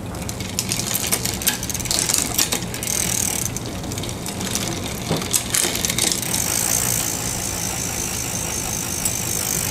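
Bicycle drivetrain on a 1987 Mongoose ATB clicking and ratcheting as the cranks are turned and the rear derailleur is shifted through the gears, the chain jumping between cogs. There are many sharp clicks, growing into a dense fast ticking about six seconds in. The derailleur is shifting after its cables have been adjusted.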